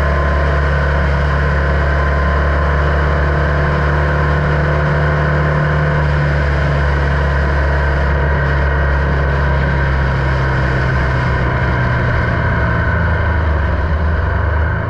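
Formula Vee's air-cooled Volkswagen flat-four engine running at a steady pitch, heard from the cockpit with a steady rush of noise over it.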